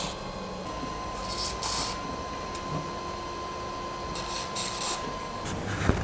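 Short hisses of an aerosol can of white lithium PTFE grease spraying through its straw onto the printer's Y-axis rail: a pair of quick sprays about a second and a half in, and another pair around four to five seconds in. A faint steady high tone runs under them.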